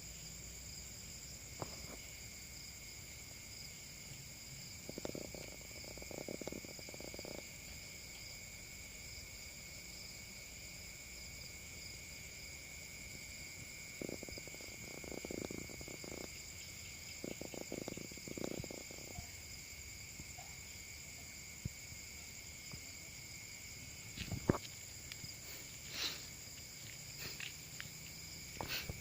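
Night chorus of crickets and other insects: steady high-pitched chirring at several pitches at once. Short, low, pulsed calls break in three times, and a few sharp clicks come near the end.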